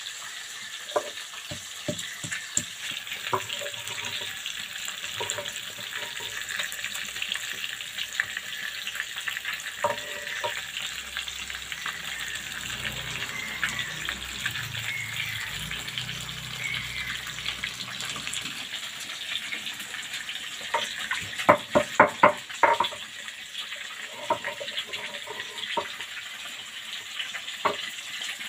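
Katla fish steaks sizzling steadily as they fry in hot oil in a wok. Over it come scattered knocks and scraping from a stone roller working ginger and garlic on a grinding slab, with a quick run of louder knocks about three-quarters of the way through.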